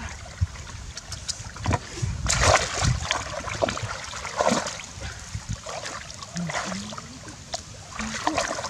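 Irregular splashing and sloshing of shallow stream water, from hands groping inside a bamboo plunge-basket fish trap and bare feet wading through the water.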